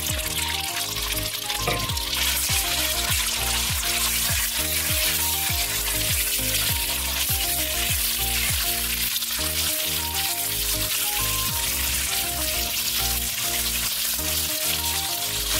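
Marinated shredded pork sizzling hard in smoking-hot oil in a nonstick wok on high heat, stirred with a silicone spatula; the sizzle grows fuller about two seconds in as the meat spreads across the pan. Background music with a steady beat plays underneath.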